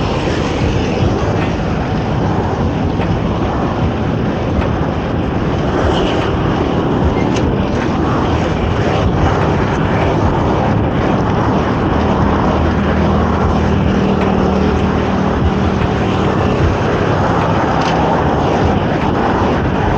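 Traffic noise and wind rushing over the microphone of a moving bicycle. A motor vehicle's engine drones steadily from about twelve to seventeen seconds in.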